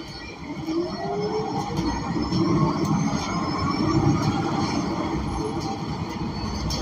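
Cummins Westport L9N natural-gas engine of a Gillig BRT Plus transit bus, heard from inside the cabin, building up as the bus accelerates. A whine from the drivetrain climbs in pitch with it.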